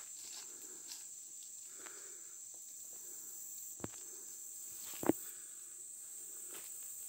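Steady high-pitched drone of rainforest insects, with soft footsteps through leaf litter and undergrowth on a forest trail. Two sharp clicks stand out, about four and five seconds in, the second louder.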